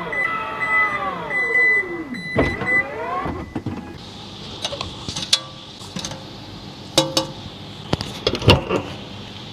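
Toyota Land Cruiser Prado's power window motor whining, its pitch falling until it stops about two and a half seconds in, then running again briefly with a rising whine. A steady high beep sounds over the first two seconds, and after the motor stops come a series of sharp clicks and knocks.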